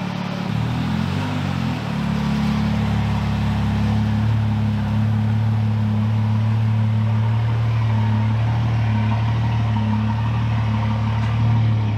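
BMW 335i's turbocharged inline-six idling as the car creeps into the garage at low speed. Its pitch wavers briefly about half a second in, then holds steady.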